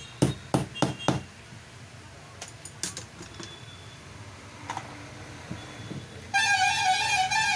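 Several sharp knocks and clicks in the first second as a marble cutter's armature is handled against its metal gear housing, with a few faint ticks later. Near the end a louder wavering tone with overtones lasts over a second.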